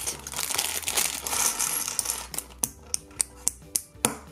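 A rustle, then a quick run of sharp plastic clicks as small LEGO bricks are handled and pressed together.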